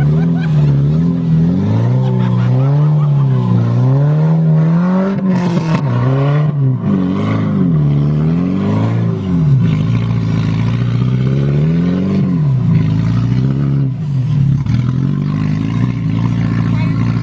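Car engine revving up and easing off over and over, its pitch swinging up and down every second or two, heard from inside the car. A short hiss comes about five seconds in.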